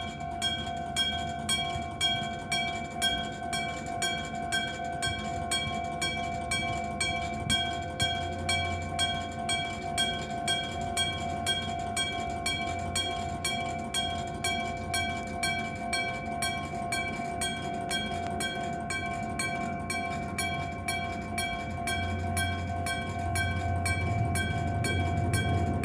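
Electric-bell (denshō-type) level crossing alarm ringing, its bell struck over and over at about two strikes a second, each strike leaving a ringing tone; a low rumble grows in the last few seconds.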